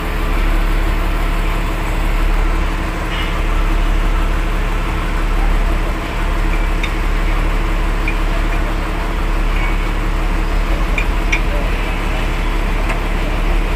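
Heavy diesel machinery engine idling steadily, with a few light metallic clicks from the wrenches on the nut.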